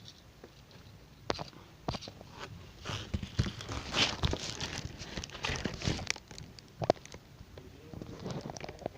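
Irregular small clicks, taps and rustles of hands working a 3D pen on the back of a phone.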